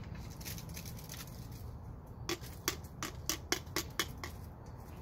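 Plastic Rescue wasp trap being handled as its inner cone is worked out: a quick run of about eight sharp plastic clicks and taps, roughly four a second, starting a little over two seconds in. A steady low rumble runs underneath.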